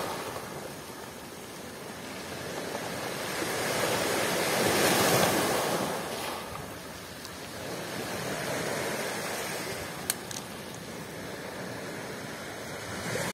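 Black Sea surf breaking over rocks and washing up a pebble beach, swelling to its loudest about five seconds in and again more softly around nine seconds. A single short click just after ten seconds.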